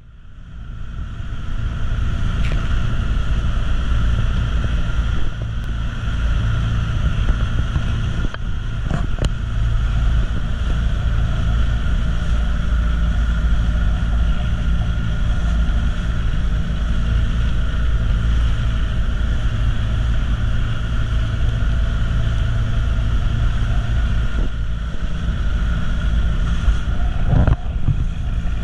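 Engine of a motorized outrigger boat (bangka) running steadily under way, a constant drone with a deep rumble, with wind on the microphone; it fades in over the first second.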